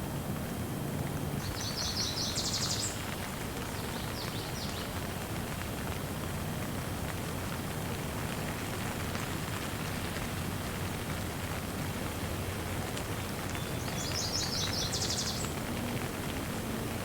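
Steady rain falling, with a songbird singing a quick trill of rapidly repeated high notes about two seconds in and again near the end, and a few short notes between.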